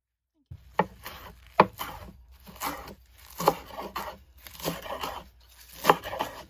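Chef's knife chopping curly kale on a wooden cutting board: a sharp knock of the blade on the board about once a second, with the crunch of the leaves between strokes.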